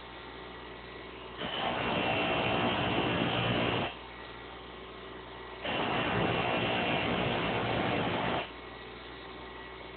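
Electric grinder running with a steady hum, as metal lock pick blanks are pressed against the wheel twice, each time for about two and a half seconds, giving a harsh grinding hiss.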